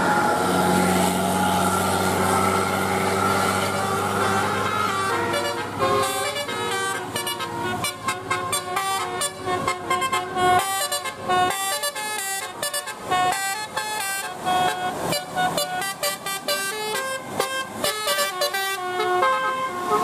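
Bus telolet horn, a multi-tone musical air horn: a held chord over the bus engine for about five seconds, then a fast melody of short notes that keeps changing pitch until shortly before the end.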